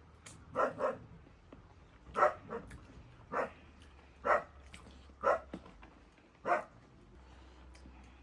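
A dog barking: about eight short barks spread over several seconds, the first few coming in quick pairs.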